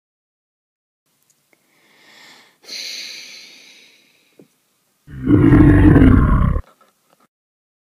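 A dragon's roar, loud and lasting about a second and a half, starting past the halfway point. Before it, from about two to four seconds in, comes a quieter hiss.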